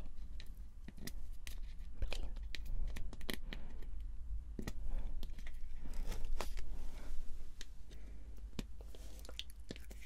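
Fingernail taps and small clicks on a plastic cosmetic tube, with crinkling and tearing of packaging, in irregular close-up handling sounds.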